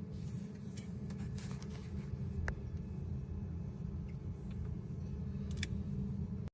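2018 Vauxhall Astra petrol engine running with a misfire, a steady low rumble with a few sharp clicks over it; the owner puts the misfire down to a broken piston.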